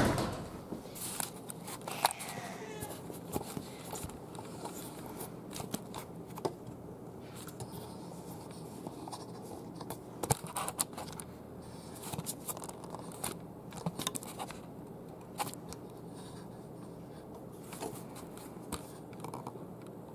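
Scattered light scratching and tapping noises over steady room tone, with a sharp knock at the very start.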